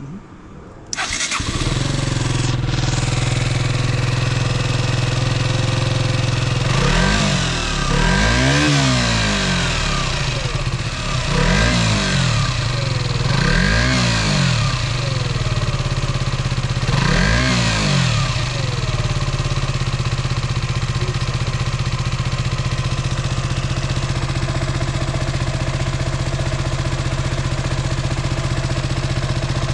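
KTM Duke 125's single-cylinder four-stroke engine starting about a second in and idling, blipped four times between about 7 and 18 seconds, then settling back to a steady idle. This is the start-up test that checks the bike runs after its fuel filter has been replaced.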